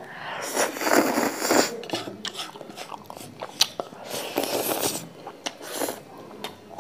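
Close-up eating of spicy dry Wai Wai instant noodles: two longer, louder slurps of noodles, about half a second in and again near five seconds, with wet chewing and small mouth clicks between them.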